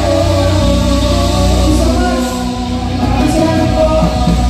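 Live band playing a song with singing, on long held notes.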